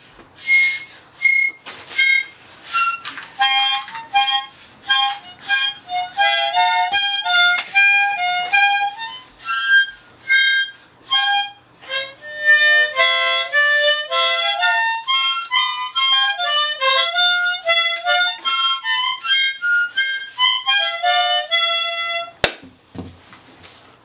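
A child blowing and drawing on a green plastic toy harmonica. Short separate puffs of chords come first; from about halfway there are longer runs of notes moving up and down. The playing stops about 22 seconds in, with a single sharp knock.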